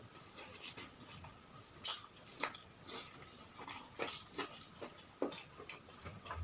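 Close-miked sounds of a person chewing and smacking their lips while eating, a string of irregular short smacks and clicks.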